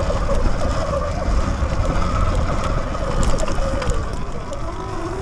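Sur-Ron X electric dirt bike climbing a dirt trail: the motor whines, rising and falling in pitch with the throttle, under heavy wind rumble on the microphone, with scattered clicks from the tyres and chassis over leaves and twigs.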